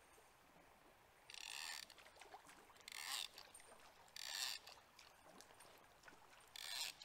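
Fishing reel rasping in four short bursts about a second apart as line is pulled off or wound on, with faint river flow between them.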